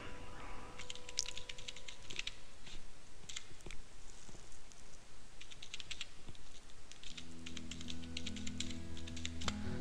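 Typing on a computer keyboard: a run of irregular key clicks as an email address is entered. Faint music with low held notes comes in about seven seconds in.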